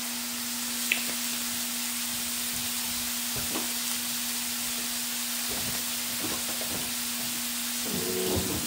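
Chicken breasts sizzling steadily on a hot grill, with a steady low hum under the sizzle. There are a few short knocks and scrapes of a utensil against the cooking surface, more of them near the end.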